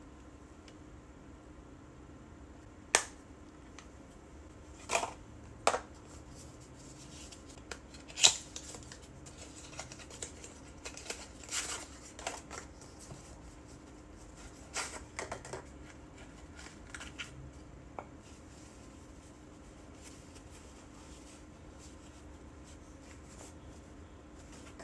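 Small cardboard gift boxes, a compact case and paper wrapping handled by hand. First a few sharp clicks and taps, then a stretch of light paper and cardboard rustling and crackling that dies away in the last several seconds, leaving a faint steady hum.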